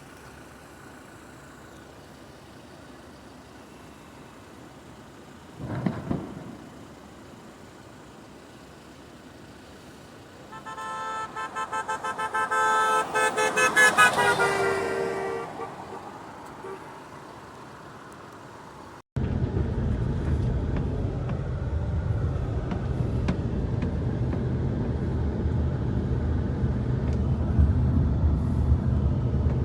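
A short thump about six seconds in, then a vehicle horn sounding for about five seconds. After a sudden cut, a steady low vehicle rumble.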